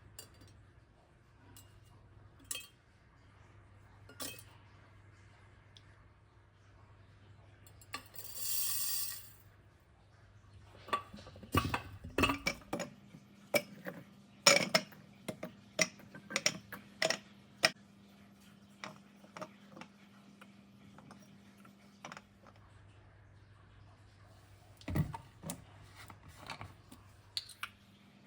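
Kitchen cutlery and dishes clinking: scattered sharp clinks and knocks, thickest in the middle, with a short hissing rustle about eight seconds in.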